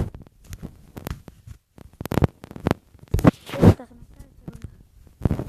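A series of irregular clicks and knocks, with a couple of louder short rustling bursts near the middle.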